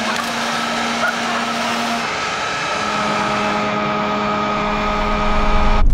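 A 2800-watt electric leaf blower running flat out, a steady motor whine over a rush of air, driving burning steel wool into a shower of sparks. The whine settles a little lower in pitch two to three seconds in.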